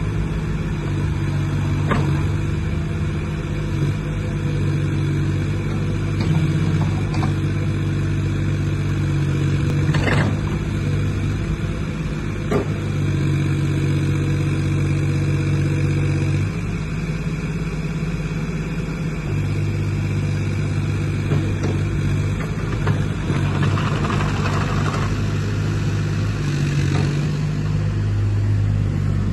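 JCB 8026 CTS mini excavator's diesel engine running steadily while the machine works its boom, arm and bucket, the engine note dipping and picking up again a few times. A few sharp knocks stand out, about two, ten and thirteen seconds in.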